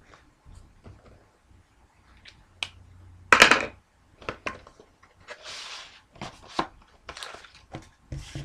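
A sealed trading-card box being opened by hand: taps and clicks of cardboard and wrapper, a loud tearing or scraping burst about three seconds in, and a longer rustle near the middle.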